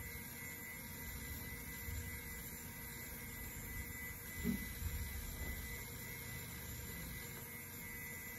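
Steady hum and whine of an IBM PC Server 315 running as it boots, its cooling fans and hard drive spinning, with a brief low blip about halfway through.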